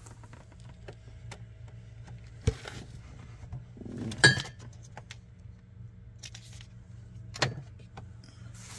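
Ceramic mug and coffee pods being handled in a mini fridge's freezer compartment: three clinks and knocks against the plastic shelf, the loudest one ringing about four seconds in. A steady low hum runs underneath.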